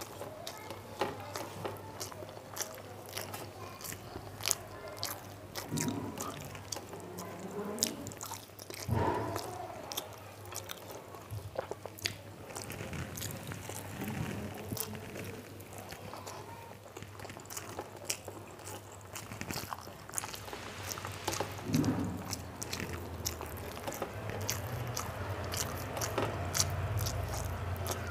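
A person chewing and biting through a mouthful of rice and curry eaten by hand, with many sharp wet mouth clicks and smacks.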